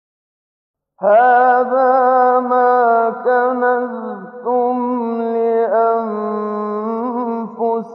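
Male Quran reciter chanting in the melodic tajwid style: one long, ornamented phrase that starts abruptly about a second in, holding and drawing out its notes with wavering pitch turns.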